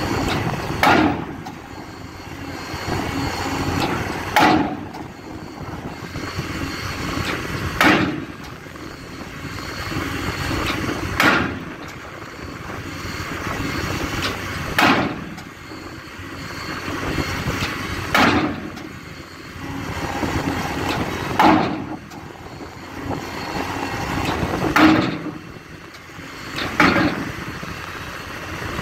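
16-ton pile hammer driving a steel pile casing: nine heavy blows, about one every three and a half seconds, the last two closer together. A steady machine noise swells between the blows.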